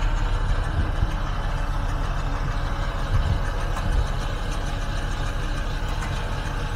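Mitsubishi L200 pickup's engine running steadily while bogged in deep mud, with a couple of short low thumps about three and four seconds in.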